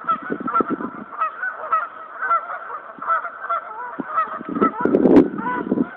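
A flock of geese honking, many short calls overlapping continuously. About five seconds in there is a brief louder rustling burst with a click.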